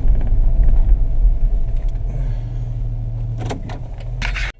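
Road and engine noise inside a moving van: a steady low rumble and drone. Near the end come a few short clicks or knocks, and then the sound cuts off abruptly.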